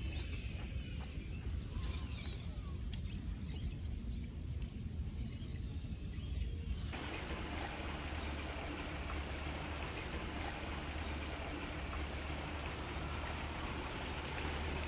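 Outdoor ambience with birds chirping faintly over a low rumble. About seven seconds in it changes abruptly to a steady, even hiss.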